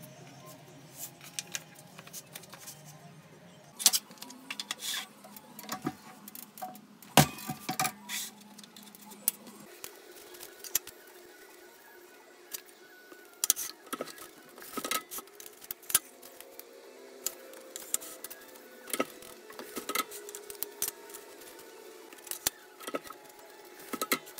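Irregular sharp taps and clatters of leather pieces and stiff templates being laid, slid and knocked on the bed of a clicker press.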